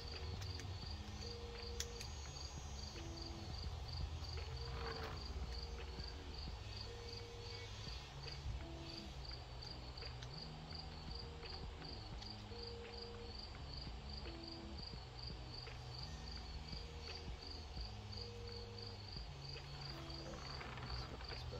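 A cricket chirping steadily, about three chirps a second. Under it run low held tones that change pitch every second or so, with a few faint clicks.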